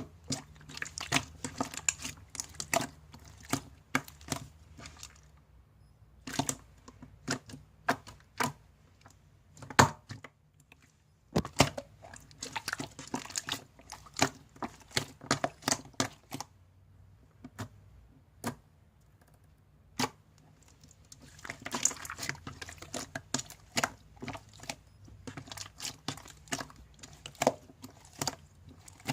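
Glitter slime being squished, pressed and stretched by hand, giving runs of sharp wet clicks and pops with short pauses between handfuls.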